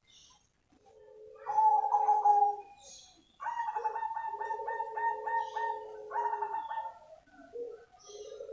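Zebra dove of the black cemani form singing its cooing song: soft coos starting about a second and a half in, then a long phrase broken into a rapid stutter of notes, then further coos near the end.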